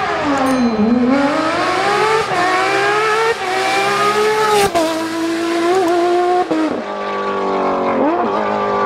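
Rally car engines revving hard: the pitch climbs under acceleration and drops sharply at gear changes every couple of seconds.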